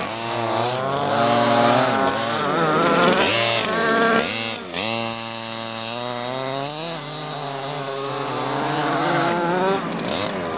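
Small two-stroke engine of a 1/5-scale gas RC buggy revving up and down as it is driven on dirt. The throttle drops sharply and picks up again about four and a half seconds in, and the pitch holds steadier for a few seconds after that.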